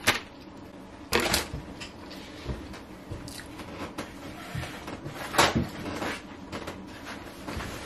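Scattered knocks, clicks and rustles of takeout containers, lids and utensils being handled at a table, with the sharpest knocks about a second in and about five seconds in.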